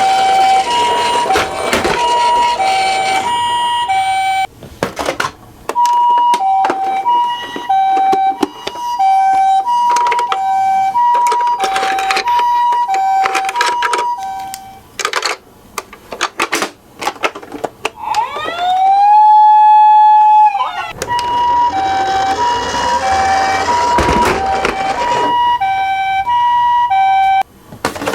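Toy ambulance's electronic two-tone siren alternating high and low about once a second, with sharp clicks and knocks scattered throughout. About two thirds of the way in, the two-tone pattern gives way to a single tone that slides up and holds for about three seconds before the alternating siren resumes.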